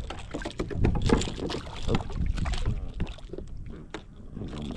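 Irregular knocks, clicks and rustles of handling gear aboard a plastic fishing kayak, over low rumbling noise on the microphone.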